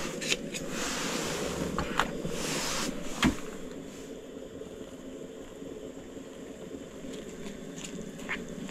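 Steady rushing hiss of a propane burner running. A few sharp clicks and a louder hiss come in the first three seconds, and the sound is quieter from about four seconds on.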